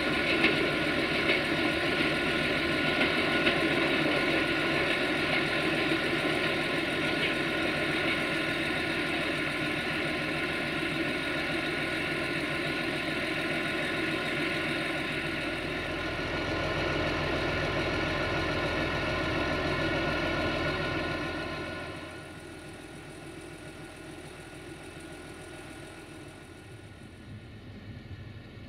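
Diesel-hauled passenger train pulling away, its locomotive's diesel engine running steadily under the rumble of the train. About 22 seconds in, the sound cuts to a much quieter steady engine noise.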